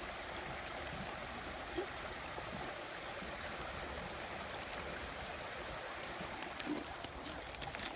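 Shallow rocky creek flowing over and around stones: a steady rush of water.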